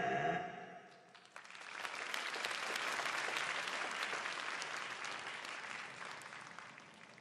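The music's last held note dies away, and after a brief pause an audience breaks into applause, which builds, holds and then slowly fades out.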